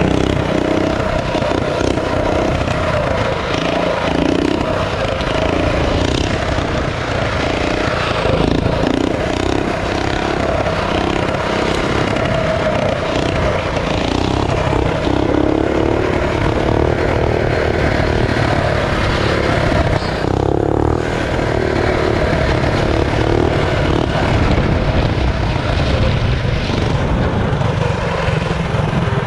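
Stage-two Tillotson 212cc single-cylinder four-stroke minibike engine with an aftermarket header pipe, running loud and steady under throttle while riding. It briefly eases off about twenty seconds in.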